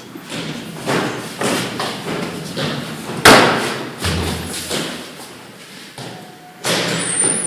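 Hurried footsteps thudding on hard floor and stairs, about two steps a second, with one much louder thud about three seconds in.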